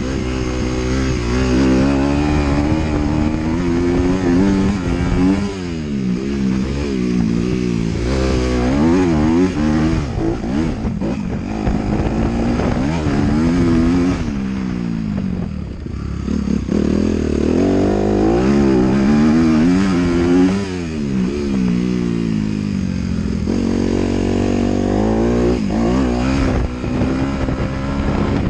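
Motocross dirt bike engine revving hard under a rider on a dirt track. The pitch climbs and drops over and over as the rider accelerates, shifts and rolls off the throttle.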